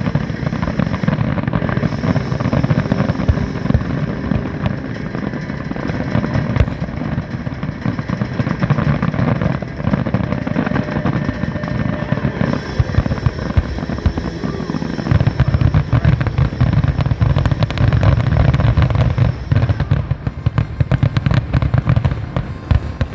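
Fireworks finale: a dense, continuous barrage of shell bursts and booms, heaviest about two-thirds of the way in.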